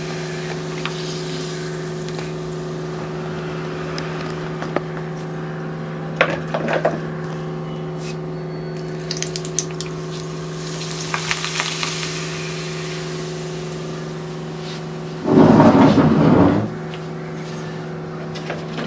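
Appalam (papad) frying in a little hot oil in an iron kadai, with faint sizzling and light clinks of the ladle, over a steady electrical-sounding hum. A louder burst of clattering noise comes about fifteen seconds in and lasts a second or so.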